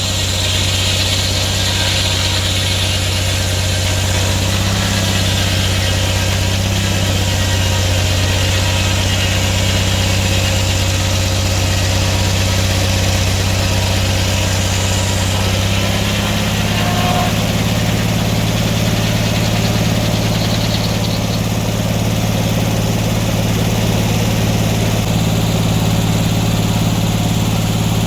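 Sawmill engine running steadily under power, its note shifting slightly about halfway through.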